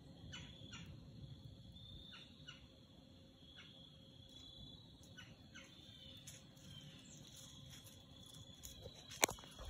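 Crickets chirping steadily in woodland, with faint short rustles scattered through the first half and one sharp click near the end.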